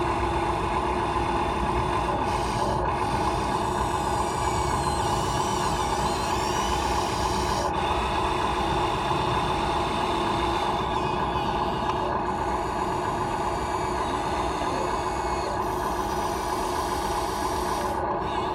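Huina RC excavator's electric gear motors whirring and grinding steadily under load, the sound shifting several times as different functions start and stop.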